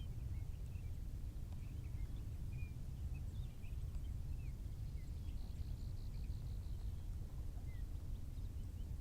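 Small birds chirping in short scattered calls, with a quick trill about five seconds in, over a steady low rumble.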